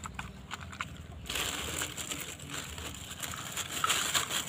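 Thin plastic bag rustling and crinkling as a hand handles it and puts small toys inside, in irregular scrunches that grow busier about a second in.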